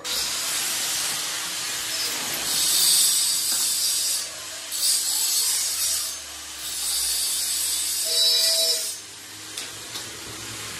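Electric arc welder (stick welding) crackling and hissing as it tacks the joints of a steel window grill, in several bursts a second or two long with short breaks between them.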